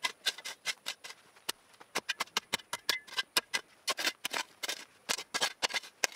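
Round-point steel shovel digging into dry, clumpy soil: a quick, irregular run of short scrapes and clinks, about four a second, as the blade bites into the dirt and lifts it out.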